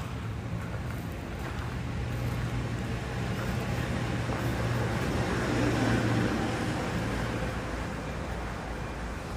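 Traffic noise: a steady low engine hum under road noise that swells about halfway through and then eases.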